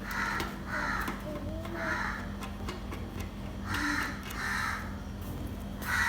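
Crows cawing, about six harsh caws roughly a second apart, over a steady low hum.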